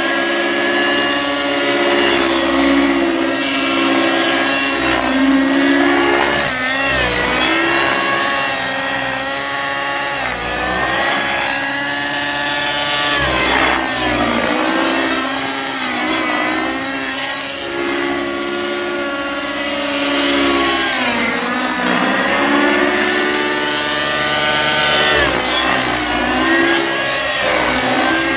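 Two-stroke nitro glow engine of an Aeolus 50 RC helicopter running in flight, its whine rising and falling in pitch repeatedly as the model manoeuvres.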